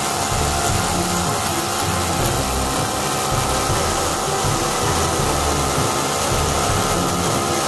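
Miniature supercharged V8 model engine running steadily.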